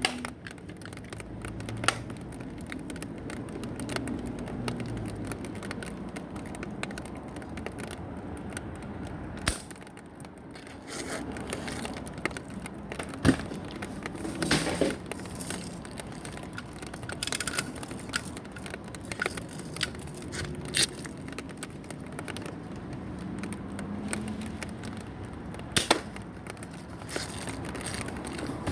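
Mechanical clicking and handling rattles from air guns being worked, with a few louder sharp cracks about 2, 13 and 26 seconds in.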